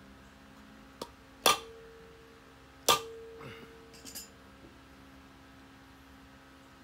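Two hard hammer blows on the hub of a cast-iron brake drum, a second and a half apart, each leaving the drum ringing with a clear tone that fades, followed by a few lighter metal clanks as the tools are set down.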